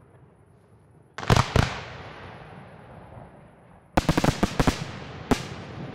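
Aerial firework shells bursting: two sharp bangs about a second in, then a quick run of bangs about four seconds in and one more near the end, each trailing off into an echoing rumble.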